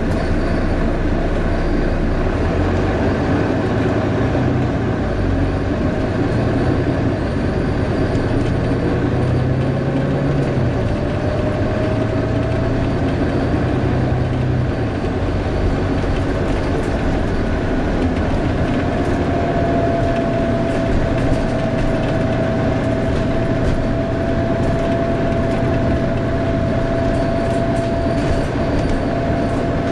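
Volvo B9TL double-decker bus heard from inside, engine and running noise steady, with the cooling fan's whine rising in pitch about eight seconds in and then holding one steady pitch through the second half.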